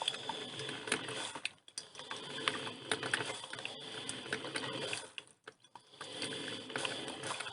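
Filter coffee machine brewing: a dense, irregular crackle and popping over a steady hiss, dipping briefly twice.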